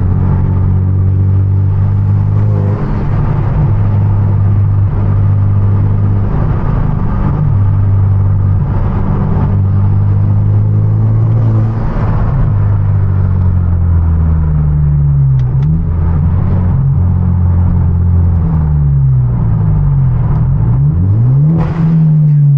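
Hyundai Genesis Coupe 2.0T's turbocharged four-cylinder engine under way in a manual car, heard from inside: a steady engine note for most of the time, then the revs rise and fall repeatedly over the last several seconds, with a few short sharp cracks near the end.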